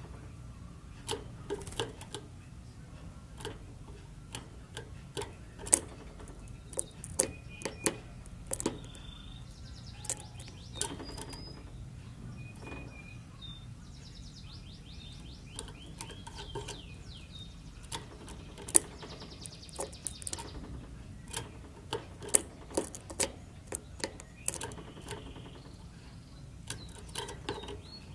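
Timbrado canary giving short snatches of song and chirps now and then, among many sharp, irregular clicks and taps, which are the loudest sounds, over a low steady hum.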